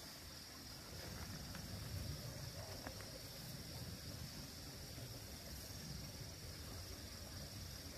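A steady chorus of insects: one constant high-pitched buzz that never breaks, over a low rumble.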